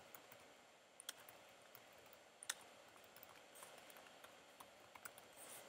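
Faint, scattered keystrokes on a computer keyboard over near silence.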